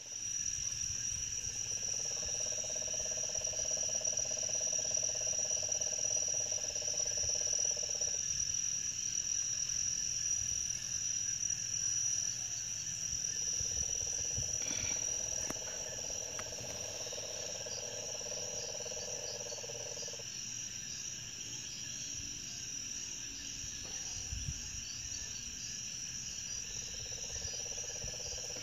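Puerto Rican crested toad (sapo concho) calling in three long, steady bouts of several seconds each, the last starting near the end, over a steady high-pitched insect chorus.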